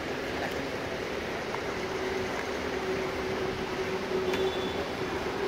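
Steady background rumble with a faint constant hum, and a single short tick about four seconds in.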